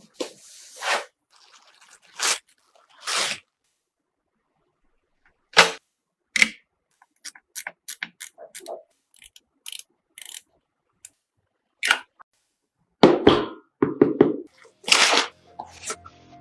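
A string of separate clicks, knocks and short rustles with silence between them, from computer parts being handled and fitted together. A cluster of louder knocks comes near the end.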